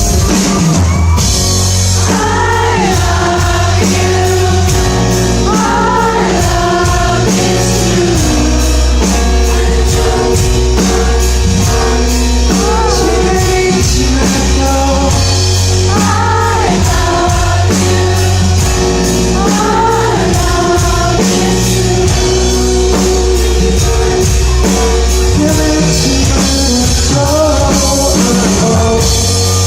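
Live pop-rock band playing with singing over a steady beat and bass line.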